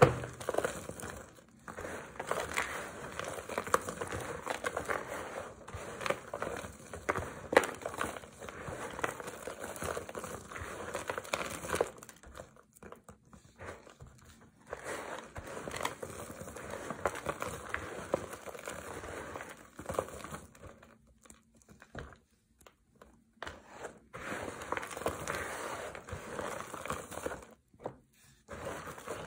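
Dry, crumbled soap flakes being pressed, squeezed and crushed by hand: crisp crackling crunches in irregular bursts, broken by a few short pauses, the longest a little before the middle and about three-quarters of the way through.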